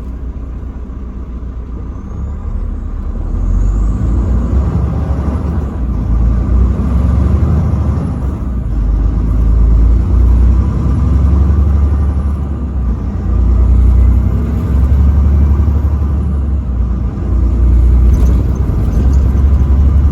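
Truck driving on the road: a loud low rumble of engine and road noise, rising about three seconds in and swelling and easing after that.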